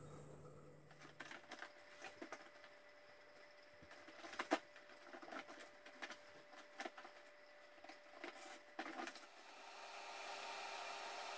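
Faint rustling and crackling of a woven water hyacinth basket and its cord being handled, with irregular small creaks and clicks and one louder crackle about halfway through. A steady faint hiss takes over near the end.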